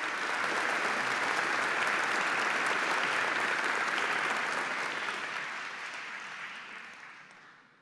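Audience applauding, a dense steady clapping that swells and then dies away over the last couple of seconds.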